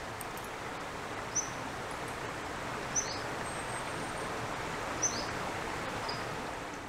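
Steady open-field outdoor ambience, with a bird giving three short high chirps.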